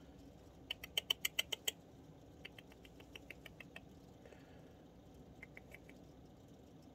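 Baby red squirrel, five weeks old, squeaking in quick runs of short, high squeaks: a loud run of about eight about a second in, a fainter run soon after, and a brief few near the end.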